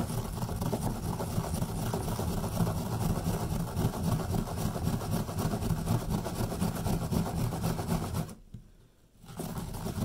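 Peeled carrot rubbed up and down a fine hand grater with a metal grating face, a continuous rasping scrape with one pause of about a second near the end.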